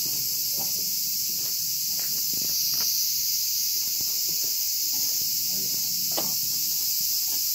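Dense chorus of insects, an even high-pitched hiss that never lets up, with faint footsteps on the path beneath it.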